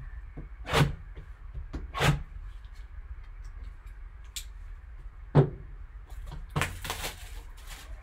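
A sealed trading-card box being cut and opened by hand. There are three sharp clicks and taps of cardboard, the loudest about five and a half seconds in, then a rustling tear of the wrapping that lasts about a second.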